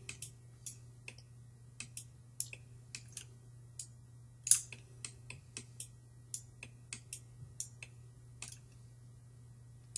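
Irregular, scattered clicks of a computer mouse and keyboard, a couple of dozen over the span, a few louder than the rest, over a steady low hum.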